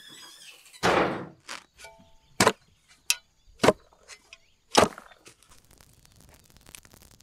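A hand tool striking hard ground or wood: a heavy scraping thud about a second in, then four sharp blows over the next two and a half seconds.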